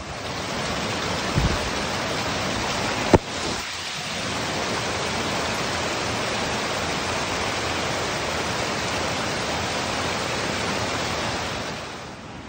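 A small mountain creek rushing and splashing over rocks, a steady loud wash of whitewater. A single sharp click about three seconds in.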